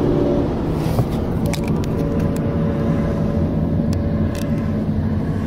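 Steady low rumble of road and engine noise inside a moving car on a highway. A train horn fades out right at the start, and a few sharp clicks come about one and a half to two and a half seconds in, with one more near the end.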